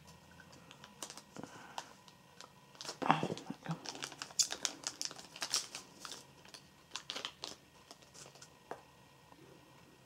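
Clear plastic sleeve crinkling and crackling as a pen is worked out of it: a run of short, sharp crackles, busiest in the middle of the stretch and thinning out toward the end.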